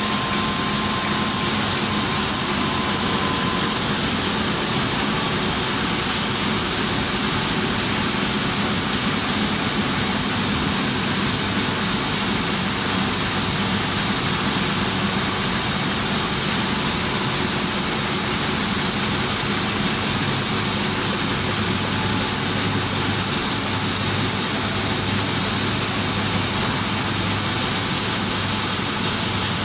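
Sheetfed offset printing press machinery running: a steady, unbroken mechanical whir with a high hiss over a low hum.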